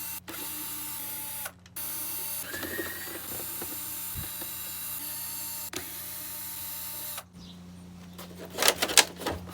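A power drill running in long bursts that stop and start suddenly, its pitch briefly rising about two and a half seconds in, as it backs screws out of the ice maker's panels; a few knocks and clatters of parts near the end.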